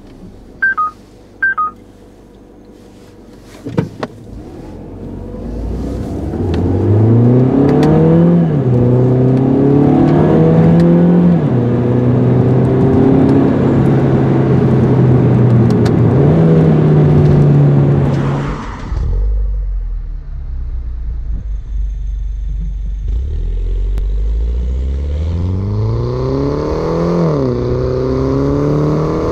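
Mini Cooper S R56's 1.6-litre turbocharged four-cylinder engine accelerating, the revs climbing and dropping back at each upshift of the six-speed automatic, then settling to a low rumble before climbing through the gears again near the end. A few short electronic chimes and a knock come first.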